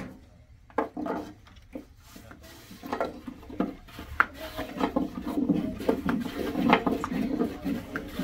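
Clatter of dishes and utensils being handled: short knocks and clinks, sparse at first and coming thick and fast from about three seconds in.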